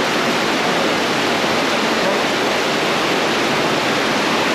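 Waterfall rushing: a loud, steady roar of falling water with no breaks.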